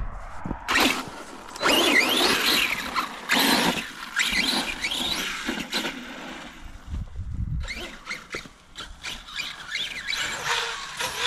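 Kraton XL RC monster truck's electric motor whining through several bursts of throttle, its pitch gliding up and down.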